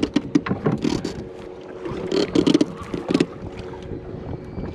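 Water slapping and knocking against the hull of a small boat at sea in irregular bunches, with wind on the microphone and a faint steady hum underneath.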